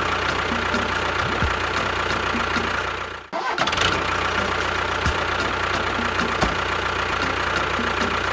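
A small engine or motor running steadily. It cuts out briefly about three seconds in and starts up again at once.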